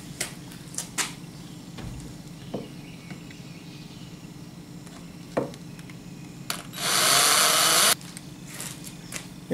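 Black & Decker cordless lithium drill/driver running in one burst of about a second near the end, driving a wood screw into the workbench's drawer stop. A few light clicks and knocks of handling come before it.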